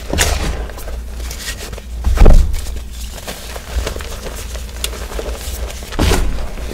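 Hands crushing and crumbling blocks of reformed gym chalk in a bowl of loose chalk powder: a steady crackling, crunching crumble, with a low muffled thump about two seconds in as the hands plunge into the powder, and another burst of crunching near the end.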